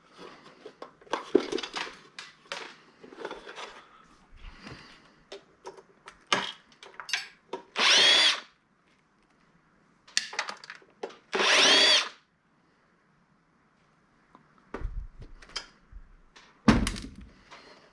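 Power drill run in two short bursts about a second each, its motor whine rising and then falling, taking apart a retail scanner docking station. Clicks and knocks of parts being handled come between the bursts.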